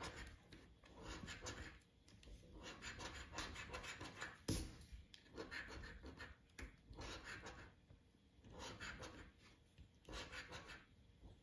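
A coin scraping the coating off a scratch-card lottery ticket: faint short scratching strokes about once a second with brief pauses, and a sharper click about four and a half seconds in.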